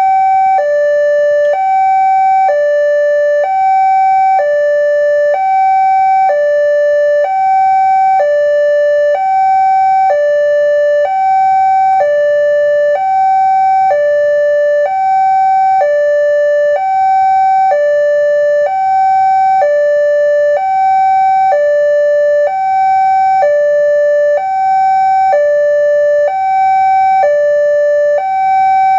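Railway level-crossing warning alarm sounding continuously: an electronic two-tone chime alternating between a higher and a lower note, each held about a second. It signals that the barriers are down and a train is approaching.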